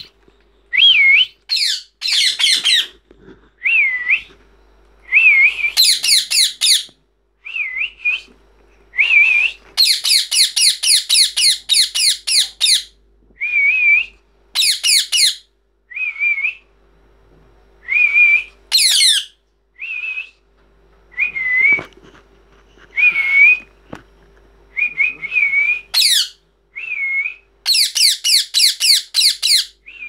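Young rose-ringed parakeets calling: short calls that bend up and down in pitch, alternating with fast runs of rapidly repeated notes, one burst after another with brief pauses between.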